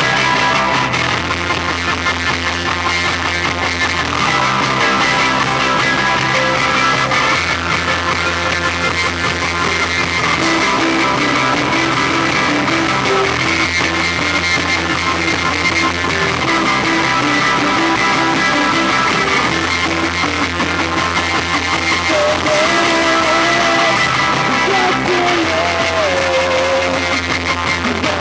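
Live rock band playing a song: distorted electric guitar chords over bass and drums, with the bass note changing every few seconds and a wavering melody line coming in near the end. Recorded on a camera microphone, so the sound is harsh and muddy.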